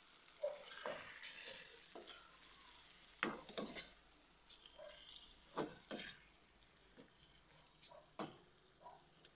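Squid frying in a pan and being turned over with a metal turner, which clinks against the pan several times over a light sizzle.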